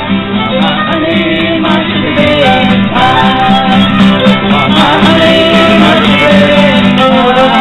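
Acoustic guitar and fiddle playing a country-style tune, with voices singing along.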